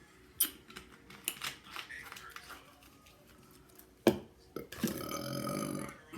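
Mouth noises of eating a burger, a scatter of small wet clicks and smacks, then a sharp click. Near the end comes one long, low burp lasting about a second.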